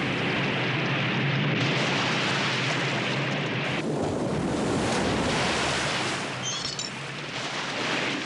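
Cartoon flood of water surging through: a loud, steady rush of churning water.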